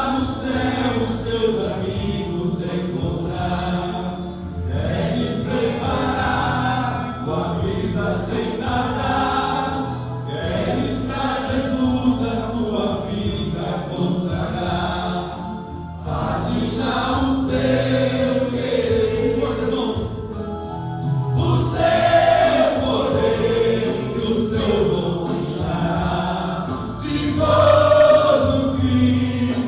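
Men's choir singing a gospel hymn, with instrumental accompaniment.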